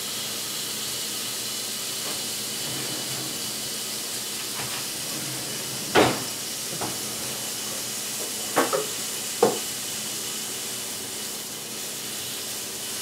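Food sizzling steadily in a hot frying pan on a stove. A loud clatter of a utensil or pan comes about halfway through, and a few quicker knocks follow a few seconds later.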